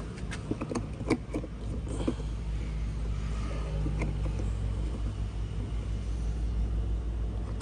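Diesel truck engine idling steadily, a low rumble, with a few light clicks and knocks in the first two seconds as the plastic cap of a drum is handled.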